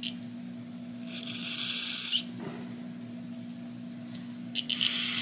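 Two short blasts of compressed air from an air nozzle blowing out small-engine carburetor parts: a hiss of about a second, then a shorter one near the end, each starting and stopping sharply.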